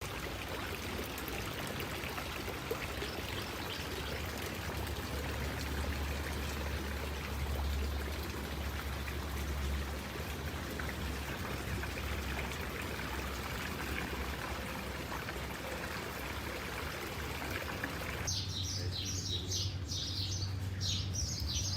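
Fountain water splashing and trickling in a steady wash. About eighteen seconds in the water sound cuts off and small birds chirp in a quick series of short, falling notes.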